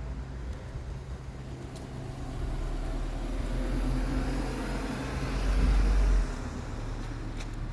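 A car approaching and driving past on a road, its engine and tyre noise building up and peaking with a low rumble about six seconds in, then quickly falling away.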